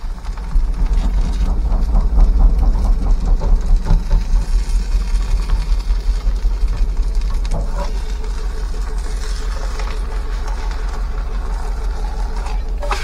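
A steady low rumble, pulsing for the first several seconds and then even, over a shredded potato pancake frying in a pan on a gas stove.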